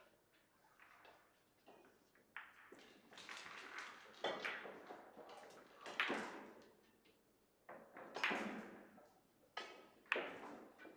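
Several sharp clacks of Russian pyramid billiard balls being struck and colliding, each ringing on briefly in a large, echoing hall.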